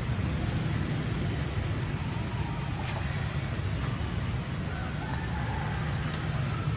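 Steady outdoor background noise: a fluctuating low rumble under an even hiss, with a few faint brief ticks near the end.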